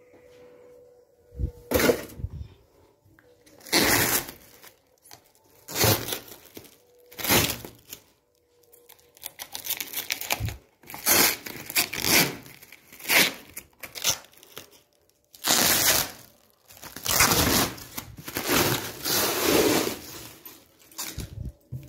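Clear plastic wrapping being torn and pulled off a new desert air cooler, in a series of short rips every second or two.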